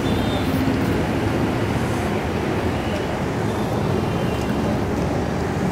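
Steady roadside traffic noise: an even, unbroken rumble and hiss with no single event standing out.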